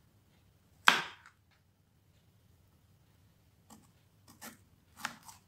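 Kitchen knife cutting baby corn on a plastic cutting board: one sharp knock of the blade hitting the board about a second in, then several softer knocks near the end.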